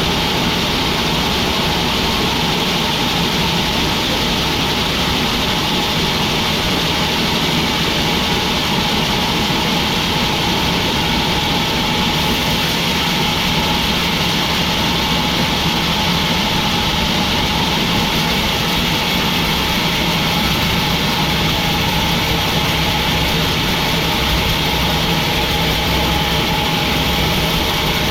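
Sawmill machinery running with a steady, even drone and a constant hum, unchanging throughout.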